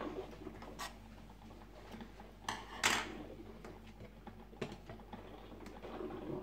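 Scattered light clicks and knocks of kitchen objects being handled on a counter, the loudest two close together about two and a half to three seconds in, over a steady low hum.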